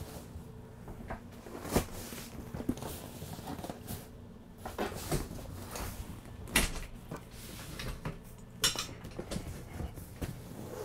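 Trifold sofa bed being unfolded by hand: scattered clunks and knocks from the folding frame and cushions, the sharpest a little past the middle and again near the end.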